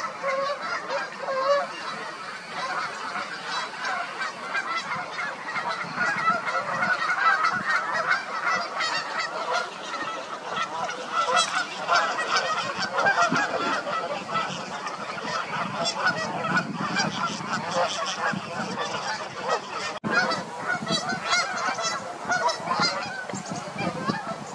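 A large flock of Canada geese honking, many calls overlapping without a break.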